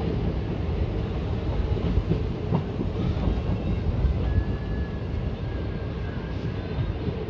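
Indian Railways passenger coach rumbling along the track, heard from its open door, with wheels knocking over rail joints as the train slows for a speed restriction. A faint thin squeal comes in about four seconds in and fades a couple of seconds later.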